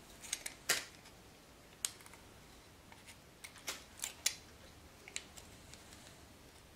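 Utility knife blade slicing thin petals into a dry wooden stick: about ten short, sharp cutting sounds at irregular intervals, several close together around the middle, with quiet between.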